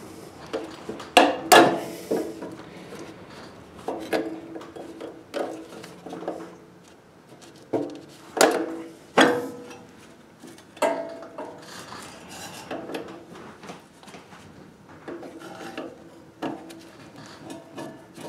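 Steel cotter pin being worked out of the auger pin on a Honda HSS1332 snowblower with a hand tool: scattered metal scrapes and clicks. Sharper clinks about a second in and around eight to nine seconds in each ring briefly.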